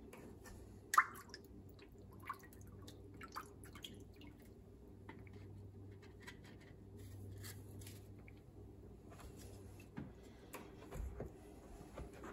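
Water dripping and splashing in a stainless steel sink as a frozen fish fillet is dipped and handled, with scattered small clicks and a sharp knock about a second in. A faint low hum runs underneath.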